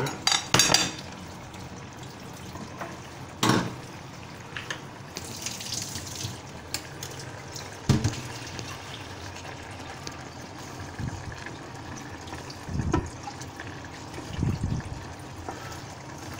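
Hot water running steadily from a kitchen tap onto a plate to warm it, with a few short knocks.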